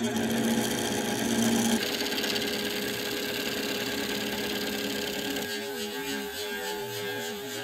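Wood lathe running while a turning tool cuts a spinning epoxy resin blank, a steady cutting hiss over the machine's hum. The sound changes abruptly about two seconds in and again near the end.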